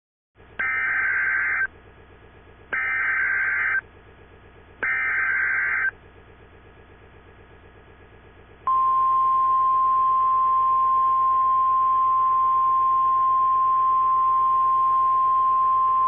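Emergency Alert System SAME header: three bursts of warbling digital data tones, each about a second long with a second's pause between. These are followed from about nine seconds in by a single steady alert tone near 1 kHz, like the NOAA Weather Radio 1050 Hz warning tone, which signals the start of an alert message. A faint low buzz sits underneath throughout.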